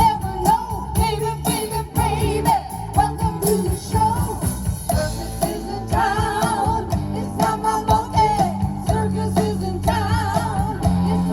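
Live rock band playing a song: electric guitar, bass and drums with a singing voice over them.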